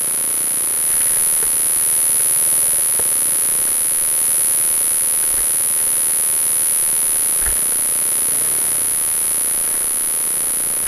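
Dirt bike riding over loose rock, heard through a helmet camera's microphone: a loud steady hiss with a high-pitched whine over it, the engine faint beneath, and a few knocks, one about a second in, one about three seconds in and one past the middle.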